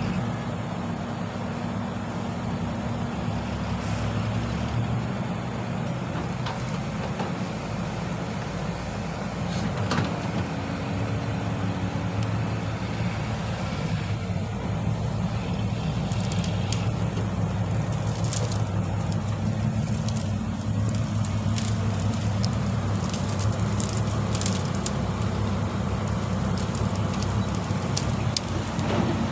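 Diesel engines of a Caterpillar 312B tracked excavator and a dump truck running, a steady low drone with sharp clicks scattered through the second half.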